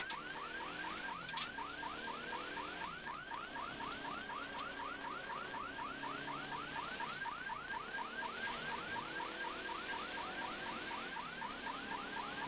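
Electronic warning siren on a rally course car, sounding a fast yelp of rising sweeps about four a second, with the car's engine and road noise faint underneath.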